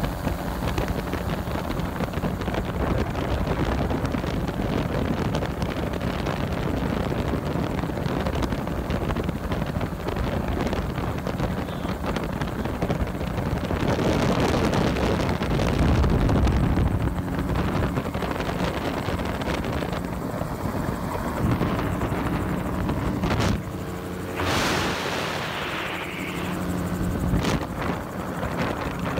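Wind buffeting the phone's microphone in an open-cockpit gyrocopter in flight, over a steady drone from the aircraft's engine and rotor. Near the end come a few knocks and a louder rush of wind.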